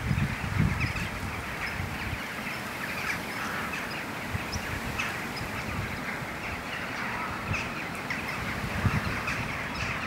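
A large flock of common starlings chattering: a dense, continuous din of many small overlapping calls and whistles, typical of starlings gathering to go down to roost. Low gusts of wind rumble on the microphone about half a second in.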